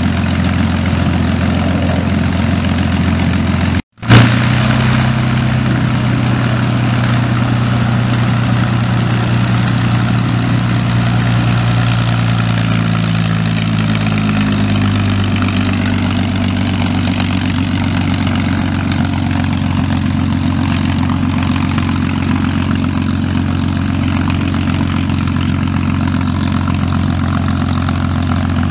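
P-51D Mustang's Packard Merlin V12 running at low taxiing rpm with its propeller turning, a steady deep engine note. Its pitch drops a little about midway as the aircraft rolls past. About four seconds in the sound breaks off briefly and comes back with a sharp click.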